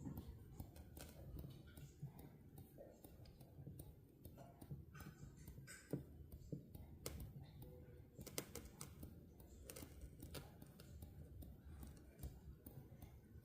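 Near silence: a faint low rumble with scattered light clicks and taps at irregular intervals.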